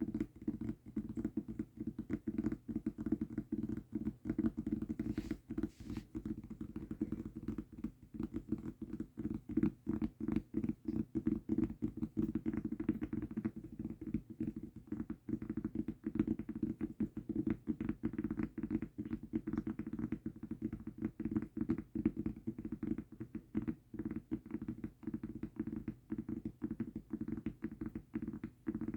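Fingertips tapping rapidly and continuously on a mousepad, a dense run of soft, dull taps.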